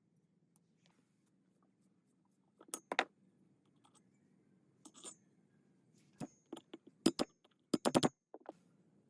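Small metal parts or hand tools clinking and knocking as they are handled and set down, in scattered sharp taps, with a quick run of four or five clicks near the end.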